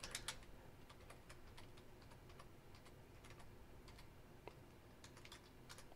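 Faint typing on a computer keyboard: scattered soft keystrokes.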